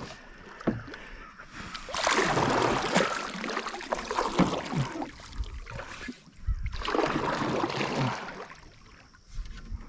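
Canoe paddle pushing through the water as the canoe is backed up, two long sloshing strokes, with a few low knocks against the hull.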